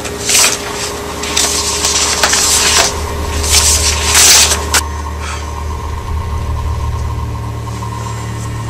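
Sheets of paper rustling as they are handled: a brief rustle, then two longer spells in the first five seconds, over a steady low hum.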